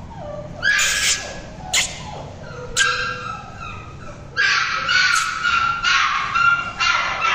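Shih Tzu puppies yipping and whining in high-pitched calls: a few short yips in the first three seconds, then a near-continuous run of yelps from a little past halfway.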